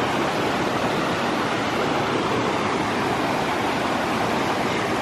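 Shallow river rushing over rocks and through small rapids: a steady, even roar of white water.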